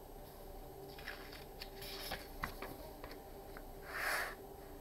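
Pages of a paper picture book being turned and handled: faint rustles and small clicks, then a brief louder paper swish about four seconds in.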